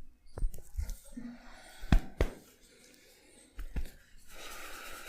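Hands-on massage sounds: a handful of sharp slaps and knocks, spaced irregularly over the first four seconds, then a steady soft hiss from about four seconds in.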